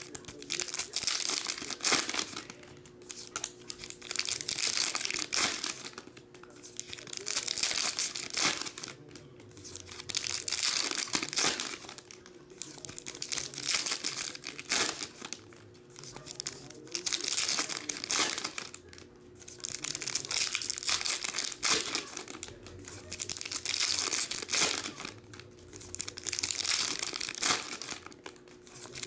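Foil trading-card pack wrappers being torn open and crinkled by hand, one pack after another, in a burst of crackling every couple of seconds.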